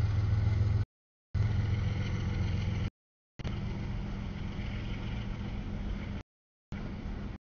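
Freight train cars rolling past a grade crossing: a steady low rumble and rattle. The sound cuts out to dead silence three times, about a second in, near three seconds and past six seconds, as the recording drops out.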